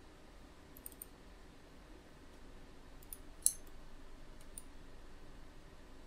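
A few faint, scattered computer mouse clicks, the sharpest about three and a half seconds in, over a low steady hum.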